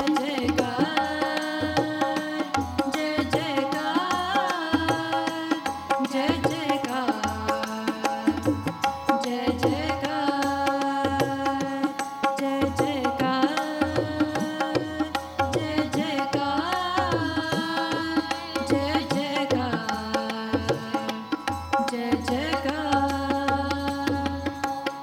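Sikh keertan: a harmonium holds steady chords while girls' voices sing a shabad together, with tabla playing a steady beat and the bass drum booming underneath.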